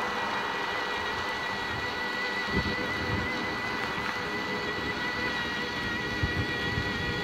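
Riding an electric bicycle on a paved street: steady tyre and wind noise with a thin, steady high whine. A few short low thumps of wind hit the microphone.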